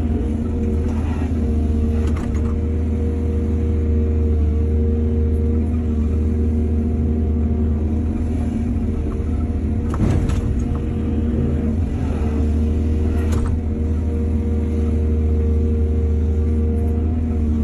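Excavator's diesel engine running steadily, with a few clanks and knocks from the machine working, the loudest about ten seconds in.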